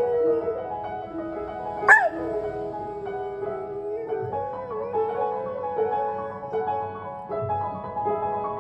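Slow piano music, with a dog howling along: a howl trails off at the start, a single sharp high yelp rises and falls about two seconds in and is the loudest sound, and a few soft, wavering whimpers follow around the middle.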